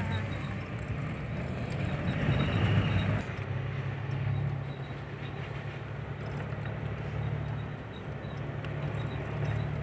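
Vehicle engine running steadily while driving, a low even drone, with a louder rush of wind and road noise that drops away about three seconds in.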